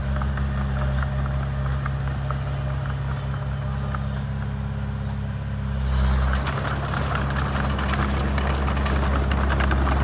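Komatsu D20A crawler bulldozer's diesel engine running steadily. About six seconds in it gets louder, with a noisy clatter of clicks and rattles as the dozer pushes into the soil.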